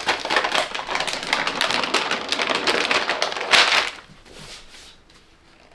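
Paper mold liner crinkling and crackling as it is handled and peeled off a loaf of cold process soap, a dense run of crackles that stops about four seconds in.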